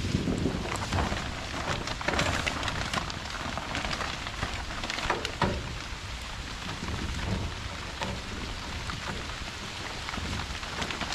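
Heavy rain falling, a steady patter of many drops.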